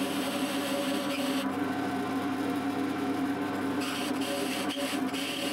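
Drill press running with a cylindrical cutter boring into a steel plate: a steady motor hum under a hiss of cutting. The cutting noise drops away about a second and a half in and comes back near the four-second mark.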